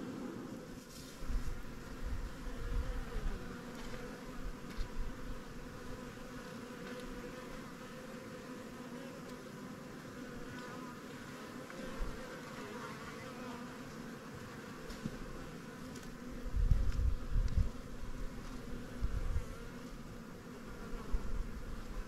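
Honeybee colony in its hive giving off a steady hum of many beating wings. Louder low rumbles come and go over it, the strongest about two-thirds of the way through.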